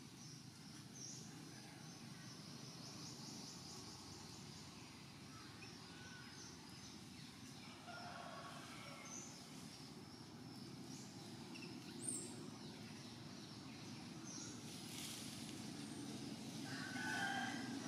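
Outdoor ambience: scattered short bird chirps and trills over a steady low background rumble, with one sharp click about twelve seconds in and a brief higher call near the end.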